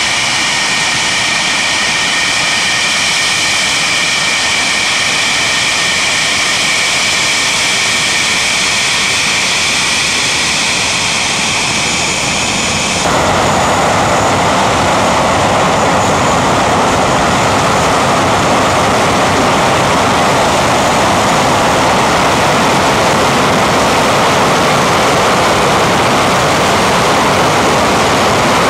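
English Electric Lightning's twin Rolls-Royce Avon turbojets running on the ground: a steady jet noise with high-pitched whine tones. About halfway through it changes suddenly to a louder, deeper, even rush without the whine.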